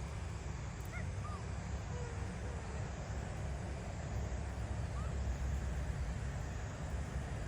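Steady low outdoor rumble, like distant traffic or wind noise, with a few faint short chirps about a second in and once more around five seconds.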